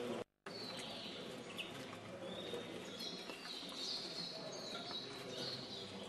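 Caged finches singing: repeated high, fast twittering song phrases over steady background noise. The sound cuts out completely for a moment about a quarter second in.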